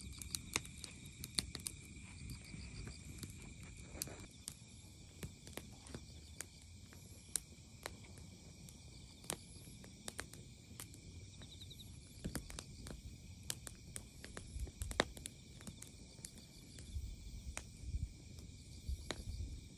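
Crickets and other night insects chirping steadily, with irregular sharp crackles and pops from split firewood burning in a fire pit.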